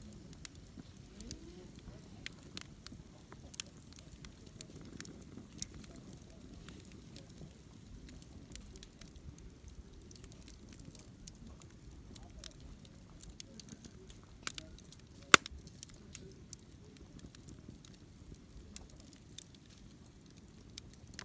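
Wood fire (焚き火) burning with a low steady rush and scattered crackles and pops, one sharp loud pop about fifteen seconds in.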